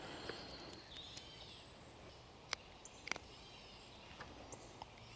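Faint bird calls, repeated high chirps, over a low steady background hiss, with a few sharp clicks, the clearest about two and a half and three seconds in.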